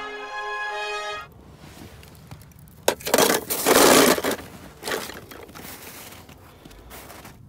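Orchestral film music that cuts off about a second in, then a run of loud crunching and rustling noises, with a few smaller ones after: footsteps crunching through snow and handling of a handheld camera.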